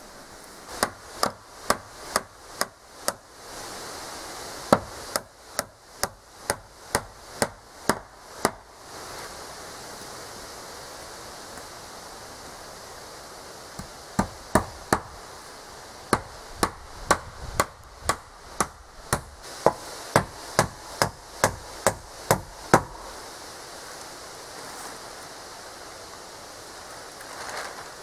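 Hammer driving nails into wooden battens on a board wall: quick, even strikes about two to three a second, in several runs with a longer pause in the middle.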